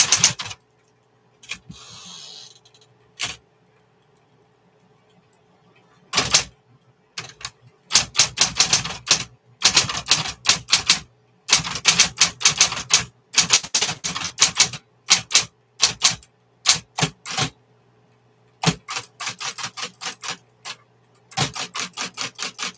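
A 1960s Smith-Corona electric typewriter being typed on: quick bursts of key strikes separated by pauses of a second to a few seconds, over a steady low hum.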